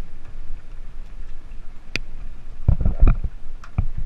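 Water splashing and sloshing around a camera held at the water's surface, with a few sharp knocks and a louder burst of low thumping and rumbling about three seconds in.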